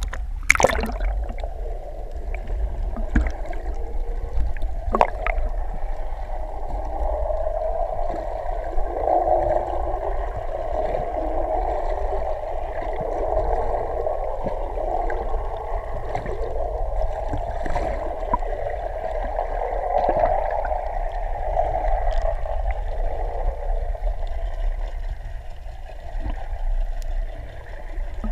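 Muffled water sound heard through a GoPro's waterproof housing held underwater: a steady gurgling wash with a low rumble, and a sharp knock as it goes under about half a second in.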